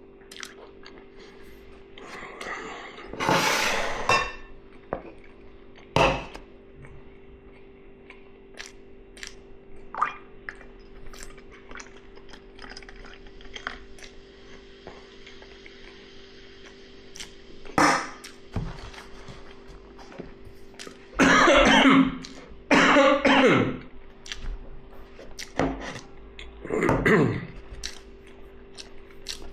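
Eating sounds: short clicks of cutlery on a plate, with several loud throat sounds, two of them close together about three-quarters of the way through.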